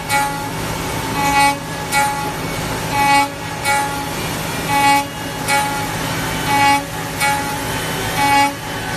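5-axis CNC router spindle cutting a wooden part: a steady machine hum with a high whine that swells and fades in a regular rhythm, a little more than once a second, as the bit loads up in the wood.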